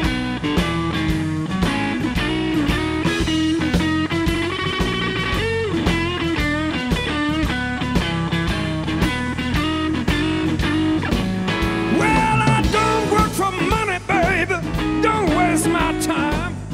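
Live blues band playing an instrumental break: a lead line bending in pitch over bass and a steady drum beat.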